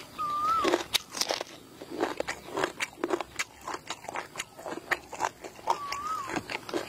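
Close-up chewing and crunching of food in the mouth, a steady run of wet crunches and small clicks. Twice, near the start and near the end, a short whistled call sounds: one clear tone that rises a little and then drops away.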